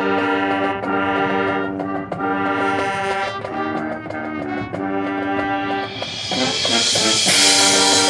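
High school marching band playing, its brass holding loud chords in phrases of about a second each. From about six seconds in, a bright cymbal swell builds to a crash just after seven seconds and the band grows louder.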